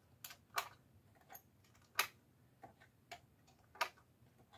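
Cartridges being pressed one at a time into an AR-15 magazine by hand, each seating with a sharp metallic click. About seven clicks at uneven intervals, the loudest about two seconds in.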